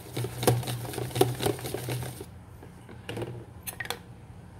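Wire whisk beating thin pancake batter in a plastic tub, the wires clicking and tapping quickly against the container's sides. The whisking stops about halfway through, leaving a few scattered taps.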